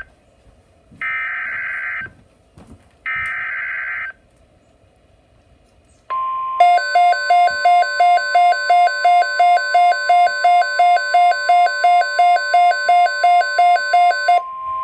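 NOAA Weather Radio emergency alert: two SAME header data bursts, a harsh digital warble about a second each, then after a short gap the steady 1050 Hz weather radio alert tone, with a pulsing electronic beep about three times a second sounding over it.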